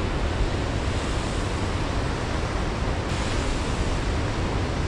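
Atlantic surf breaking on a sandy, rocky beach: a steady rushing wash of waves, with wind rumbling on the microphone.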